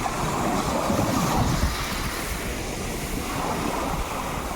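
Sea surf washing in, with wind buffeting the microphone and rumbling, swelling briefly about a second in.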